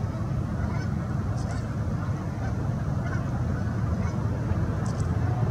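Geese honking over a steady low rumble, with two faint clicks.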